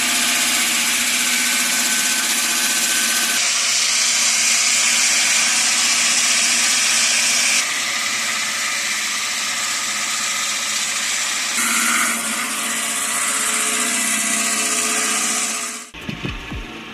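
A wood-processing machine running under load, a loud steady mechanical whine and grinding noise whose character changes abruptly a few times, then stops suddenly near the end.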